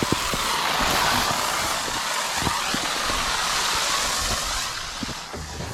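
Water rushing out of a just-opened outdoor water line that is not frozen, a steady hiss that swells about half a second in and eases off near the end.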